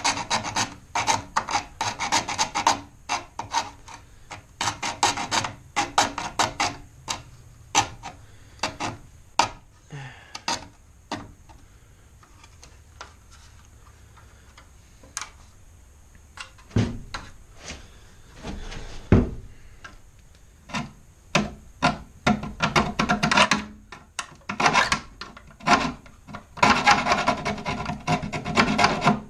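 A hand tool rasping back and forth at the plastic tabs of a 2006 Dodge Charger grille in quick strokes. The strokes come in spurts: a long run at the start, a quiet spell with a couple of knocks in the middle, and another long run near the end.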